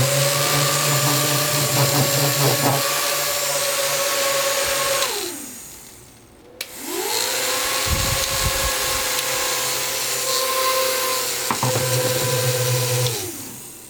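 Small DC motors of a homemade four-motor mini fan whining as they spin up, run steadily and wind down. After a click they start again, run for several seconds and wind down near the end.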